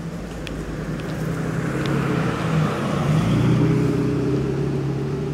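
A motor vehicle's engine running with a steady low hum, growing louder to a peak a little past the middle, then easing off.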